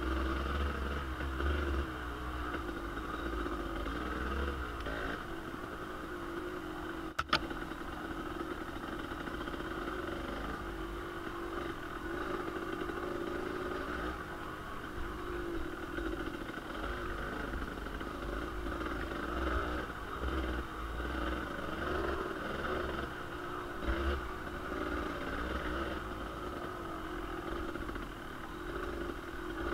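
Kawasaki KDX 220 single-cylinder two-stroke dirt bike engine running under way at a fairly steady speed, with one sharp knock about seven seconds in.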